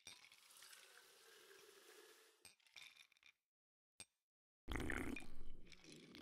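Cartoon sound effects: a drink poured from a can into a glass mug for about two and a half seconds, followed by a few short clinks. About three-quarters of the way in comes a louder, rough gulping as the mug is drunk from.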